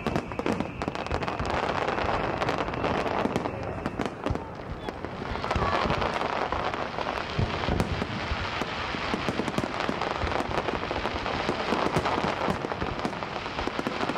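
Aerial fireworks display: a dense barrage of shell bursts and crackling. The barrage thins briefly about four seconds in, then builds again.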